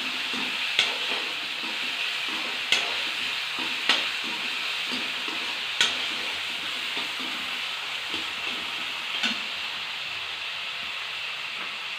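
Onions and tomatoes sizzling steadily in hot oil in a kadai as they are sautéed, with a spatula knocking against the pan about five times at uneven intervals.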